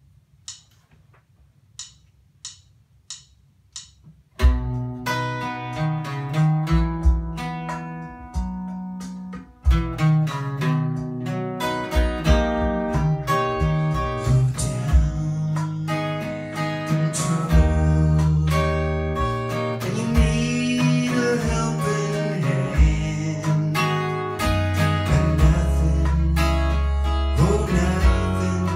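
Solo acoustic guitar strummed in chords, starting about four seconds in after a few faint ticks. A man sings along to it in the later part.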